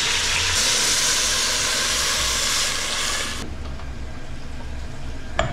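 Water pouring into a stainless pressure-cooker pot onto the frying chicken and vegetables, a loud steady hiss that cuts off suddenly about three and a half seconds in. Two light knocks near the end.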